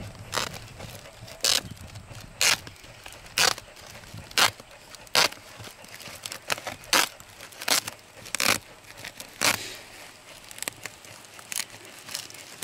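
Scissors snipping through a woven plastic sack, a series of short sharp cuts about one a second.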